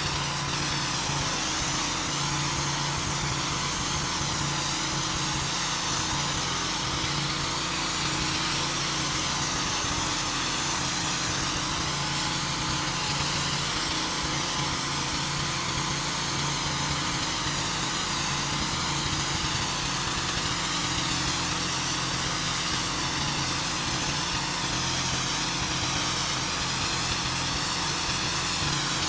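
Gas-engine pressure washer running steadily under the hiss of high-pressure water spraying a driveway.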